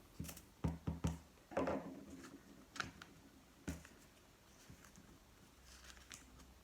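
Small scraps of paper being pressed onto a glued worksheet by hand: a few soft taps and paper rustles on a tabletop, most of them in the first four seconds.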